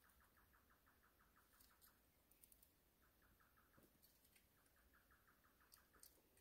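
Faint rhythmic chirping of a calling animal, about six chirps a second in runs of a second or two, with a few sharp high ticks mixed in.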